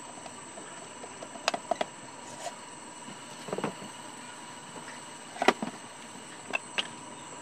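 Clicks of a blender's plastic push-button switches being pressed, with no motor starting: the blender is dead. Then knocks and clatter of the plastic motor base being picked up and turned over, the loudest about five and a half seconds in, over a steady faint hiss.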